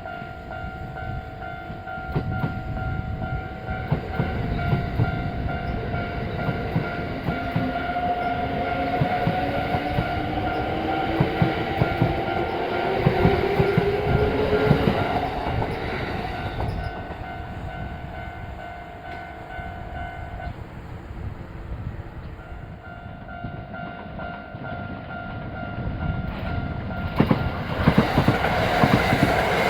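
Japanese level-crossing alarm ringing its steady electronic tone while a Kintetsu train passes, its wheels clattering over the rail joints. A whine rises in pitch in the first half. The alarm breaks off about two thirds of the way through, then starts again.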